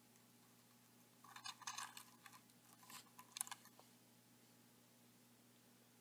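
Faint clicks and light metallic rattling for about two and a half seconds, starting about a second in: steel feeding forceps letting go of the prey and being pulled back out of a plastic tarantula enclosure, over a faint steady hum.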